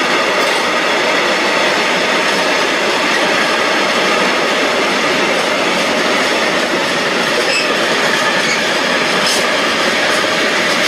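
Freight wagons of a passing train rolling by, a steady loud noise of steel wheels on the rails with faint high-pitched wheel squeal over it.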